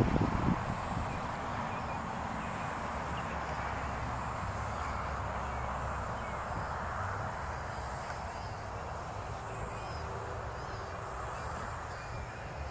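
Steady outdoor background of wind and distant traffic noise, with a brief low gust of wind on the microphone right at the start.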